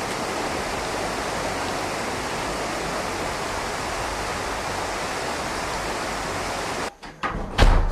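Steady, even rushing noise that cuts off abruptly about seven seconds in, followed by a couple of short knocks and one loud thump near the end.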